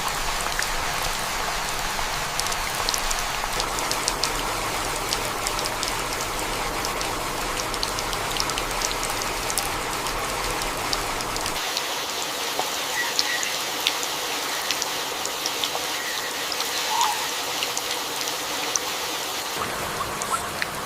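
Heavy rain falling: a steady hiss with many individual drops ticking through it. The low rumble beneath it drops away about halfway through.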